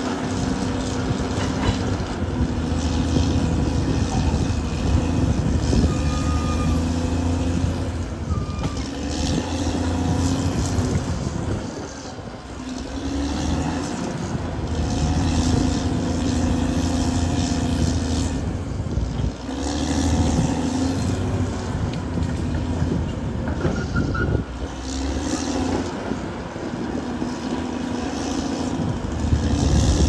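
Caterpillar D6R XL bulldozer's diesel engine running under working load, its note swelling and easing as the dozer pushes. It drops back briefly about twelve and nineteen seconds in.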